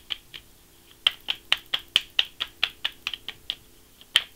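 A deck of tarot cards being shuffled by hand: a run of short, sharp card snaps, about four a second, starting about a second in and stopping about three and a half seconds in, with one more near the end.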